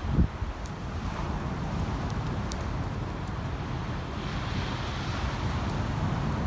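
Wind buffeting the microphone outdoors, a steady low rumble, with a short thump just at the start.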